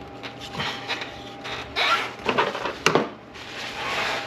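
Hand tools and metal parts being handled under the hood: irregular scraping and rattling, with one sharp click about three seconds in.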